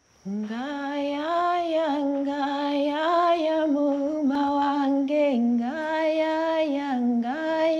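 A woman singing a slow melody solo in long held notes that step from pitch to pitch, starting abruptly just after the opening silence.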